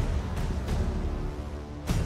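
Background music with a steady deep bass and a few sharp percussive hits.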